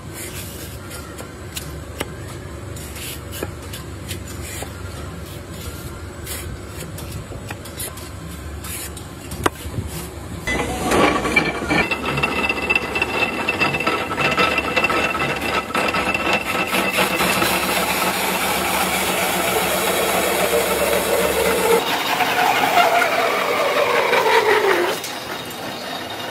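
Drawknife scraping bark off a log in repeated rasping strokes. About ten seconds in, a rotary log-peeling lathe takes over, running loud with a steady whine. Near the end the whine falls in pitch as the lathe slows, then drops away.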